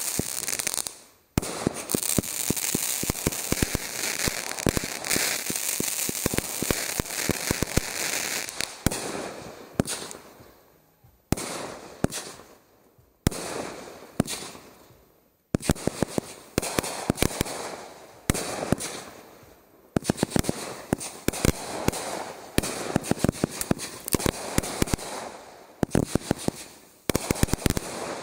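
Consumer firework cake firing volley after volley: hissing tails, sharp pops and dense crackling from the bursting stars, broken by several short lulls.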